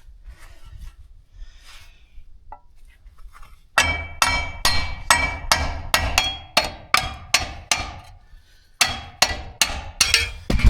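Hammer tapping on the back side of a split metal pulley to drive it off a hydraulic pump shaft, each blow with a short metallic ring. A run of about a dozen blows at about three a second starts a few seconds in, then a short pause, then several more blows.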